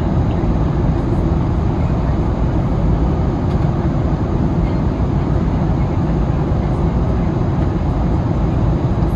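Steady engine and airflow noise heard inside the cabin of an Airbus A320neo-family airliner, a deep, even rumble that holds level throughout.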